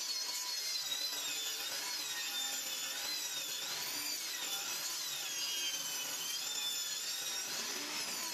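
Benchtop table saw running and cutting through a plywood panel as it is fed across the table: a steady high whine that wavers up and down in pitch under the load of the cut.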